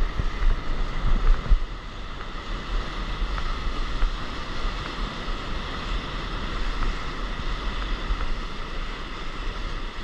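Rushing whitewater foam around a stand-up paddleboard riding a broken wave, with wind buffeting the camera microphone. Gustier and louder for the first second and a half, then a steady rush.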